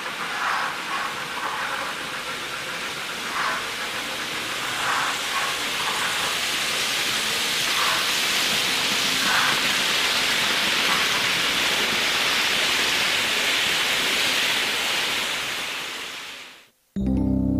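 Märklin H0-scale model train running along the layout track: a steady rushing hiss of wheels on the rails that swells as the train passes, with a few faint clicks in the first half. The hiss fades out near the end, and plucked-string music starts just after.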